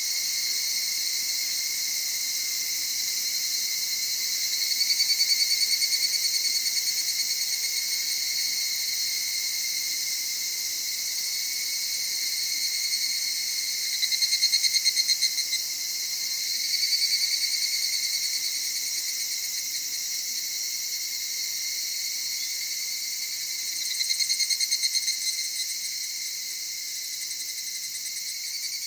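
Chorus of higurashi (evening cicadas, Tanna japonensis): a steady high insect drone, out of which single calls swell up four times, each a rapid, finely pulsed trill that rises and then fades over one to three seconds.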